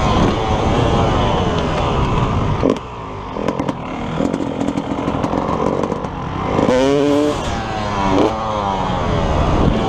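Dirt bike engine revving up and down as the rider works the throttle, easing off briefly about three seconds in and then climbing hard in pitch around seven seconds.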